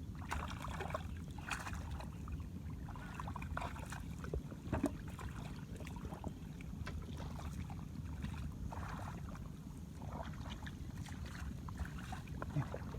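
Shallow water sloshing and splashing in short, irregular bursts as someone wades and grabs at fish by hand, over a steady low rumble of wind on the microphone.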